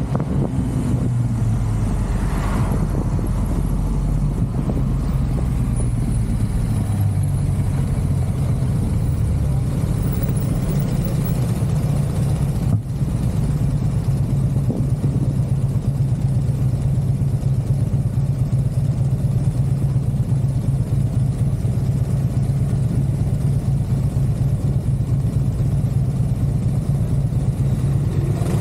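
Motor scooter engine slowing as the scooter rolls to a stop, then idling steadily, heard from a camera mounted on the scooter. A single sharp click about halfway through.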